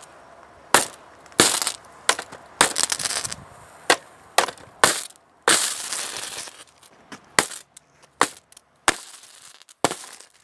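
High-current arcing from a copper rod fed by four batteries in series, shorted across a laptop's metal: about a dozen sharp, irregular cracks with sizzling crackle between, and a longer hissing burst about halfway through.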